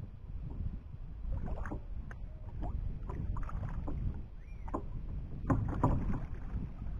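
Kayak being paddled: a double-bladed paddle splashing through the water in uneven strokes, with several sharp knocks of the paddle shaft against the plastic hull, the loudest cluster near the end, over a steady low rumble.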